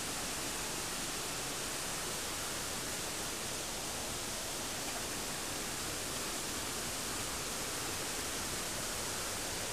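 Steady, even hiss with no distinct footsteps, voices or other events standing out.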